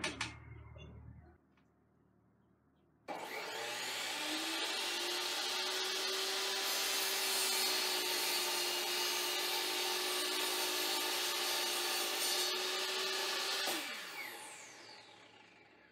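A sliding compound miter saw starts about three seconds in and runs steadily for about ten seconds while crosscutting a wooden board, then is switched off and spins down with a falling whine. A short knock comes at the very start.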